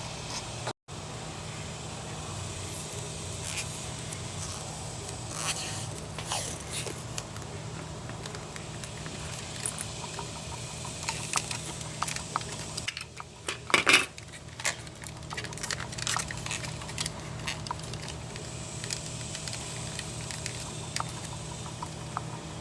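Scattered small clicks, taps and rattles of the power window switch and plastic door trim being handled and fitted back together, over a steady low hum. A louder burst of clatter comes about fourteen seconds in.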